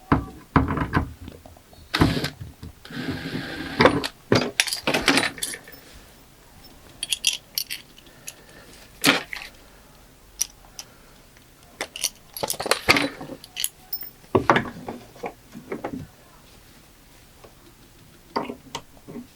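Small metal hardware clinking and rattling as it is handled, among irregular knocks, with a brief steady hiss about three seconds in.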